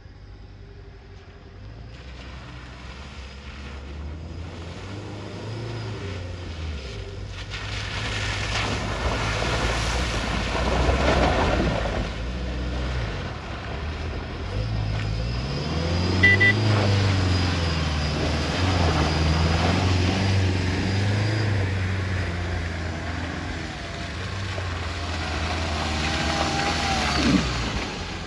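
Tata Safari SUV engines revving up and down as they drive in two-wheel drive along a muddy, waterlogged track, with tyres churning through mud and water. The sound swells and fades as the vehicles pass, loudest around ten, seventeen and twenty-seven seconds in, where the engine pitch rises and falls.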